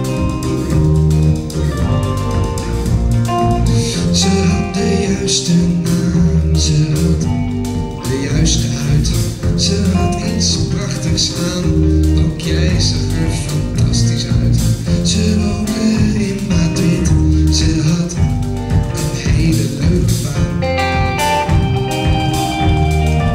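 Live rock band playing: bass guitar, electric guitar and drums, with steady cymbal hits over a heavy bass line.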